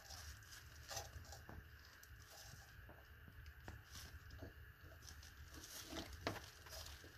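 Faint rustling of a plastic bag with scattered small clicks and taps as hands work at a toilet flange and wax ring.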